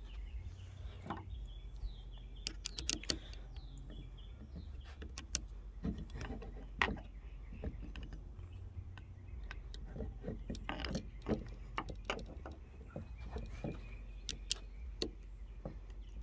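Scattered sharp clicks and knocks of plastic rod-holder parts, bungee cord and screws being handled and fitted, over a steady low rumble.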